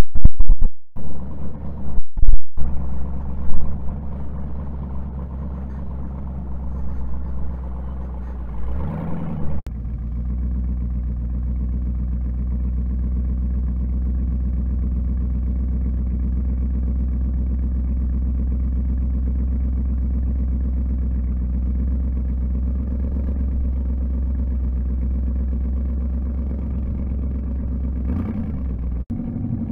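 Off-road vehicle engines running steadily at low revs while a rock buggy crawls over boulders. The first few seconds hold loud, uneven knocks and jolts from the rough trail.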